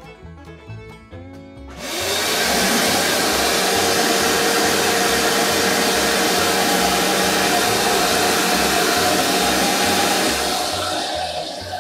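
Shop vacuum switched on about two seconds in, its motor spinning up to a loud, steady rush as the hose sucks sawdust off a workbench; the sound drops off near the end.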